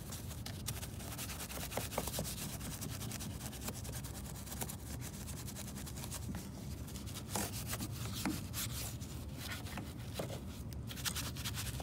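Detailing brush scrubbing a grey plastic door panel and the slats of its small vent, wet with all-purpose cleaner: a steady scratchy rubbing of bristles on plastic, in irregular strokes.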